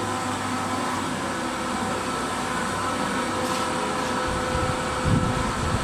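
Steady mechanical hum of a powered-up machine shop, holding several steady tones. A low rumble joins in about four seconds in.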